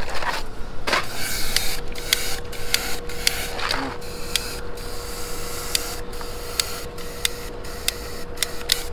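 Propane roofing torch burning with a steady hiss and a faint steady whistle as it heats a torch-down roofing membrane patch, with sharp crackles now and then.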